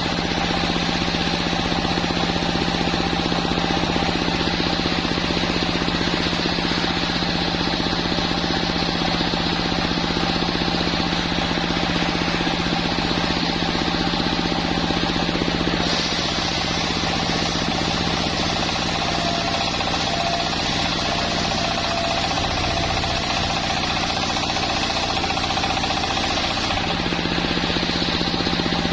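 Sawmill machinery running steadily: an engine-driven saw with a constant drone and a held whine. A higher hiss fades for about ten seconds past the middle, then returns near the end.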